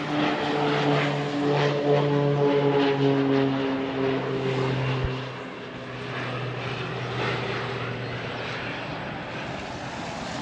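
Light propeller aircraft flying low overhead. Its engine drone drops in pitch as it passes and grows fainter about halfway through.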